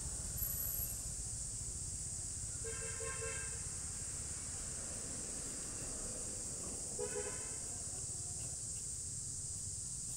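Two vehicle horn toots, a longer one about two and a half seconds in and a short one about seven seconds in, over a steady low rumble and a steady high hiss.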